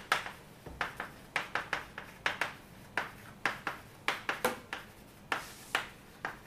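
Chalk tapping and scratching on a chalkboard as a line of words is written: an irregular run of short, sharp strokes, a few each second.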